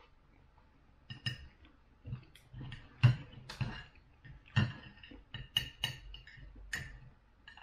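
Knife and fork clinking and scraping against a dinner plate while cutting food: a string of irregular light clinks, the loudest about three seconds in.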